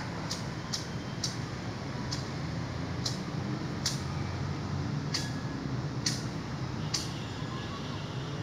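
Steady low background rumble with short, sharp high-pitched ticks about once a second.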